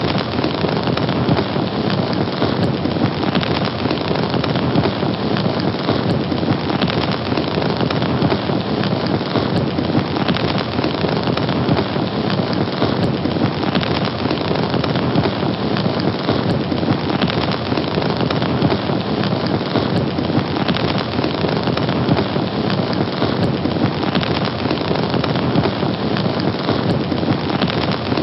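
Fire burning with a steady, dense crackle and rush that does not let up.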